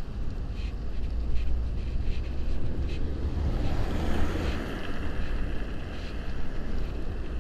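Wind rumbling on the microphone of a moving bicycle, with a car passing close by: its tyre and engine noise swells about three and a half seconds in and fades again a second or two later.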